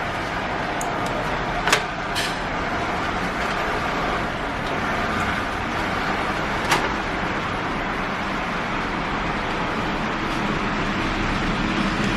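A few sharp plastic clicks, three in all, as a drive power cable's connector is handled and plugged in, over a steady background noise.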